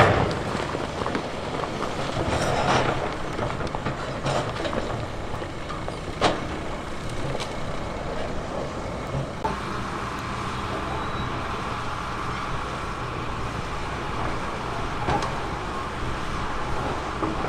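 Diesel engine of heavy earthmoving machinery running steadily, with scattered sharp knocks and clatter of rock. The loudest knocks come right at the start and about six seconds in, and the sound changes abruptly about halfway through.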